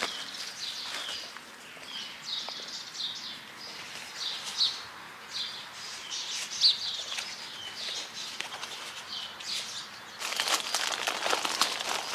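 Small birds chirping in short, high, repeated calls. From about ten seconds in, rustling and scraping noises join in.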